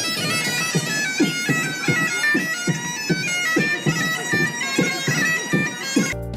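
Bagpipes playing a melody over their drone, with a beatboxed rhythm of low beats, about two to three a second, laid under it. Near the end it cuts off suddenly into different music.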